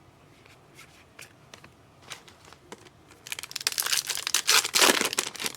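A trading-card pack wrapper being torn open and crinkled. A dense crackle starts a little past halfway through, after a few faint ticks.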